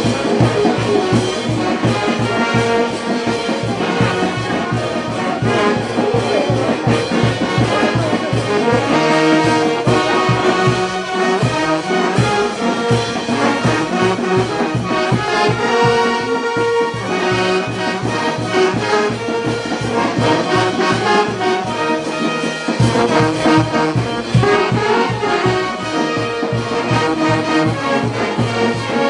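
Brass band of trumpets, trombones, saxophones and sousaphones playing a tune, with a bass drum keeping a steady beat.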